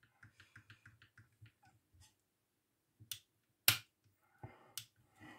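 Sharp plastic clicks from handling the field-stripped airsoft Glock 17 gas-blowback pistol's slide and frame. A few separate clicks come about three seconds in, the loudest a moment later, after faint light ticking in the first second and a half.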